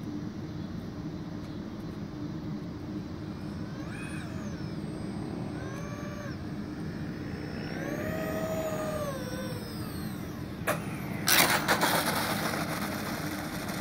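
The electric ducted fans of an RC Airbus A330 airliner whine on its landing approach, their pitch rising and falling several times with the throttle. About eleven seconds in there is a sharp knock as it touches down, then a loud rough scraping as it rolls on the asphalt.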